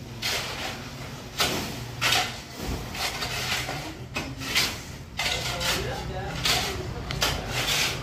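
Metal shovels scraping and digging into sand and soil: short rough scrapes about once a second, some overlapping, over a steady low hum.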